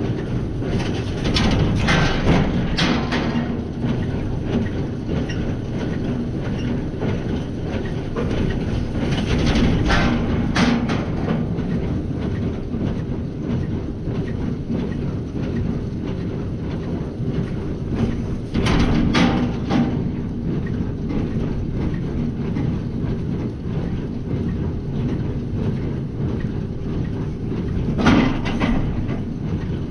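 Tractor running under load while pulling a small square baler, its plunger clattering in a steady rhythm as it bales straw. A louder clatter comes about every nine seconds.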